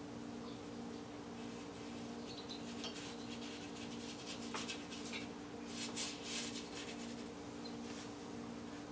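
Bristle paintbrush rubbing and scraping thick paint on the canvas and palette in short scratchy strokes, loudest about six seconds in.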